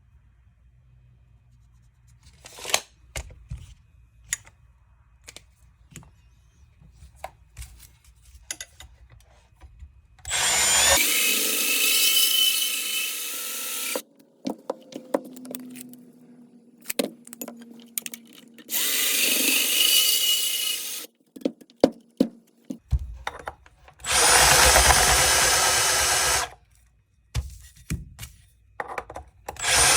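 Power drill running in four short bursts of two to three seconds each, with clicks and taps of handled hardware before the first one.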